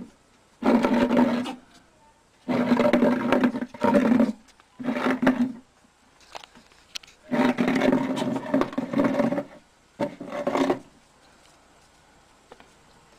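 An animal's harsh, growl-like calls in six loud bursts, most about a second long and one of about two seconds, with short quiet gaps between them.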